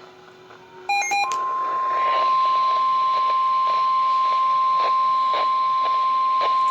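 A quick cluster of short beeps about a second in, then a steady single tone a little above 1 kHz that holds unbroken over a faint radio hiss. This is the 1050 Hz NOAA Weather Radio warning alarm tone, which signals that a warning, here a tornado warning, is about to be read.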